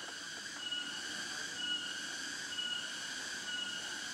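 Steady high-pitched insect drone from the forest, swelling in regular pulses about once a second.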